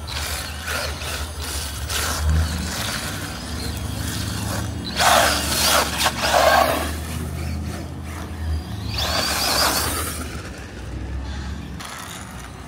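Losi Promoto-MX 1/4-scale brushless RC dirt bike riding through a shallow puddle, water splashing and spraying in two loud bursts about five and nine seconds in, over a steady low rumble.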